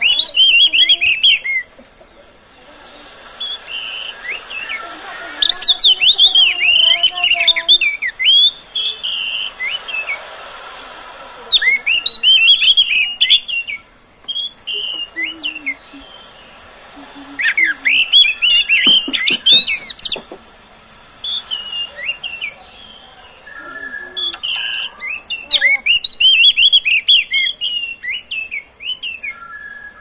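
Oriental magpie-robin (kacer) singing: about five bursts of rapid, varied whistled phrases, each a few seconds long, with short quieter pauses between.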